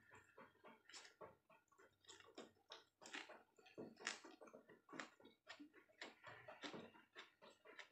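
Faint chewing and wet mouth clicks of someone eating rice with her fingers, in short irregular bursts.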